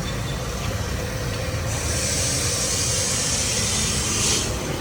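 Vehicle engine rumbling steadily in wet street traffic, with a loud hiss of spraying water or air that starts about two seconds in and cuts off shortly before the end.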